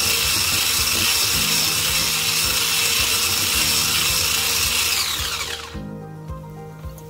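Electric whisk running steadily, its wire whisk beating butter in a ceramic bowl. About five seconds in it is switched off and its motor whine falls in pitch as it spins down.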